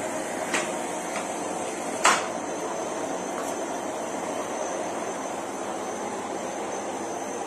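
Philips Series 3000 Performer Compact bagged vacuum cleaner (XD3110/09) running steadily at its lowest speed, a low-noise, even whoosh of suction. Two short clicks sound over it, the louder about two seconds in.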